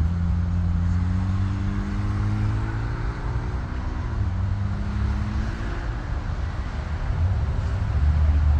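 Business jet's engines at takeoff power during its takeoff roll, heard across the airfield as a broad rushing noise that is strongest midway. Under it, a nearby road vehicle's engine hums low, its pitch climbing, dipping about four seconds in, then climbing again.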